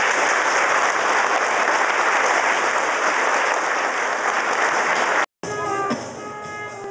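Crowd applauding steadily. The applause cuts off abruptly about five seconds in, and music follows.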